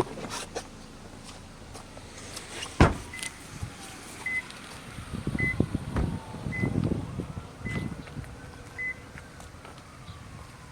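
A car door slams shut once about three seconds in, and the car's door-ajar chime beeps steadily about once a second. A siren wails faintly, its pitch slowly rising and falling.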